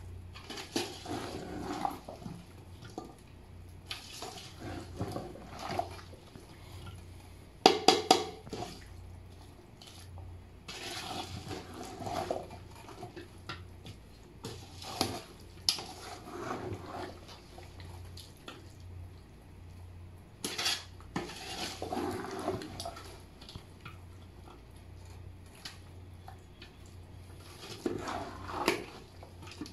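Metal ladle scraping and knocking against the inside of an aluminium cooking pot while chunks of cauliflower and potato are stirred, in irregular strokes with short pauses. The loudest clatter comes about eight seconds in.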